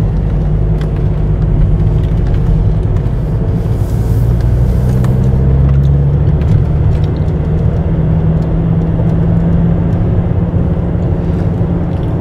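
Car driving, heard from inside the cabin: a steady rumble of engine and road noise, the engine's hum rising a little in pitch about five seconds in.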